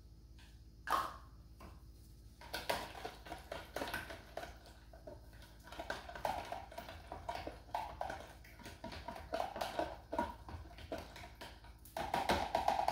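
A silicone-coated wire whisk beating a liquid marinade in a plastic food container: fast, uneven clicking and tapping strokes. There is a single knock about a second in, and the strokes get louder near the end.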